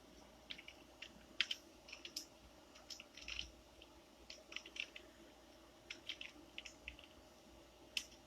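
Irregular, scattered clicks of a computer keyboard and mouse in use, two louder clicks about a second and a half in and near the end, over a faint steady hum.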